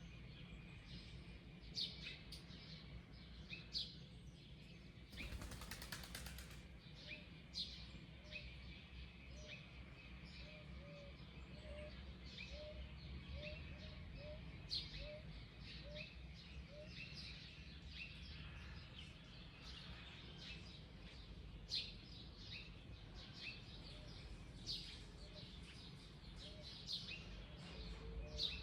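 Several wild birds chirping and calling, with many short high notes. About seven seconds in, one bird starts a run of short low notes, repeated about twice a second for roughly ten seconds. About five seconds in, a brief rushing noise sounds, which may be wing flaps.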